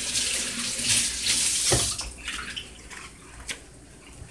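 Kitchen faucet running while hands are washed under it, with a knock against the sink; the water shuts off about two seconds in.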